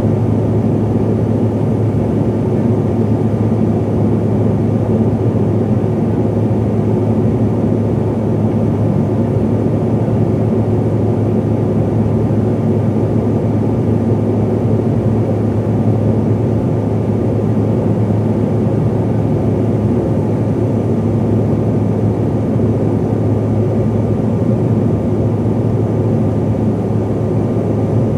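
Steady cabin drone of a CRJ-700 airliner: its rear-mounted GE CF34 turbofans and the airflow, a constant low hum with a faint steady whine above it.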